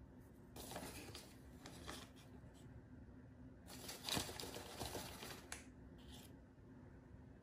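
Faint rustling and crinkling in two spells of about a second and a half each, with a shorter one after, from a hand handling powdered ingredients over a saucepan of cream.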